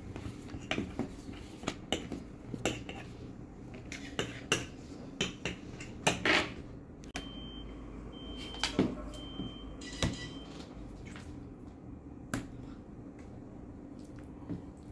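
Kitchen utensils and dishes clinking and knocking irregularly, a dozen or so separate strikes, with a faint high tone coming and going around the middle.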